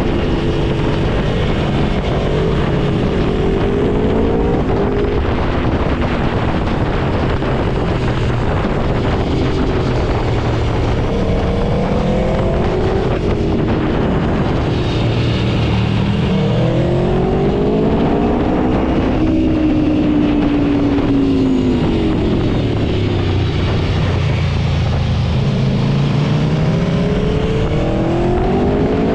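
Aprilia Tuono V4 motorcycle's V4 engine under way, its revs rising and falling again and again as it accelerates and shifts, over a steady rush of wind and road noise.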